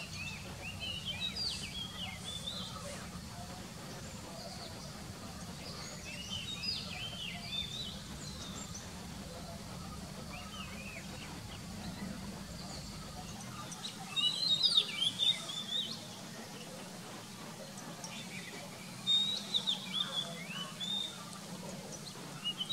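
Oriental magpie-robin singing: short phrases of quick, varied whistled notes in four bouts a few seconds apart, the loudest about two-thirds of the way through. A steady low hum runs underneath.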